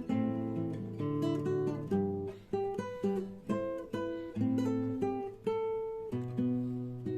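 Acoustic guitar playing chords, about two strums a second, each chord ringing and fading before the next.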